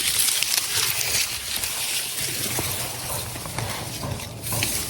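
Dry corn stalks and leaves rustling and swishing as people push through a cornfield, a dense hissing rustle over a faint low hum.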